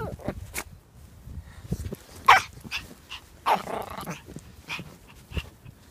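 A Pomeranian giving two short barks, one sharp about two seconds in and a fuller one about a second later, among light crunches of footsteps in snow.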